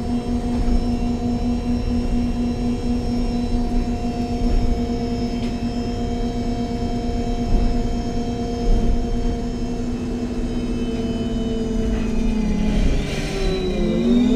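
Onboard sound of a MAN Lion's City G CNG articulated bus under way: low rumble with the engine and Voith automatic gearbox whining at a steady pitch. Near the end the pitch dips and then climbs again, with a brief hiss.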